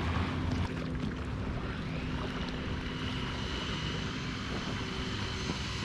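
Steady engine drone with an even hum, joined by a high whine about two seconds in.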